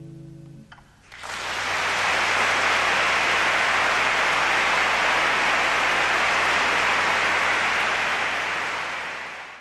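The last notes of a guitar die away, then a steady, even rushing noise swells up about a second in and cuts off suddenly near the end.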